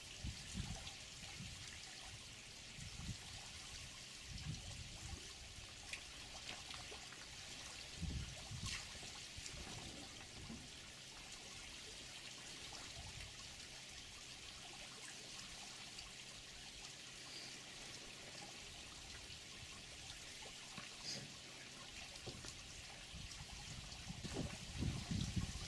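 Water trickling steadily into a waterhole, with irregular low thumps that come more often and louder near the end.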